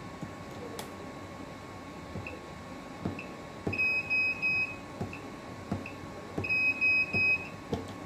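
NAND programmer beeping: three short high beeps, then three more about three seconds later, with a few fainter single blips, amid light taps and clicks from handling on the bench.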